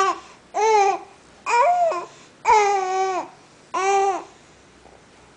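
Baby cooing: five drawn-out vowel sounds in a row, each under a second, with the pitch bending up and down.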